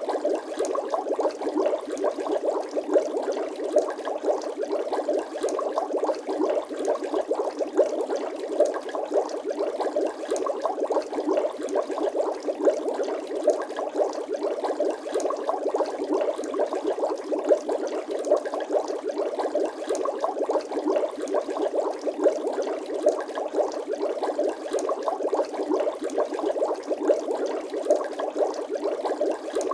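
Bubble sound effect: a steady stream of water bubbles bubbling and popping, many rapid small pops, with no deep tones.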